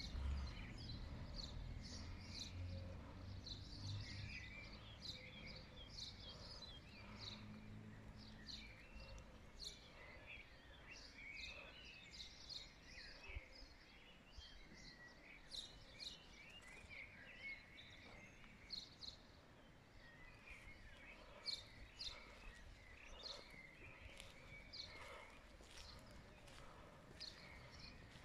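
Faint outdoor ambience of small birds chirping, many short high calls throughout, with a low rumble during the first several seconds.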